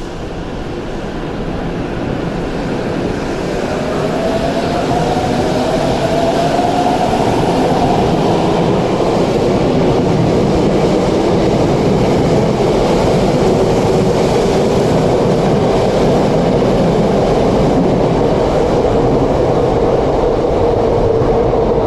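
Tokyo Metro 7000 series subway train pulling out of the underground platform: the motor whine rises in pitch as it gathers speed, over a loud rumble of wheels on rail, then settles into a steady whine.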